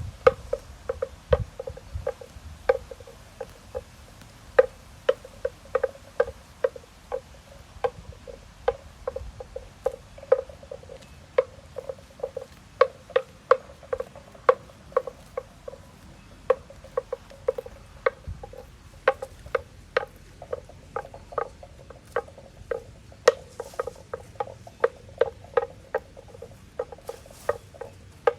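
A cow grazing, tearing off mouthfuls of grass in short, sharp rips about one to two a second, at an uneven pace.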